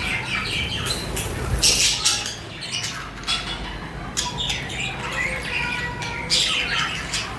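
A flock of budgerigars chirping and squawking, many calls overlapping, with two louder clusters of squawks, one about a second and a half in and one near the end.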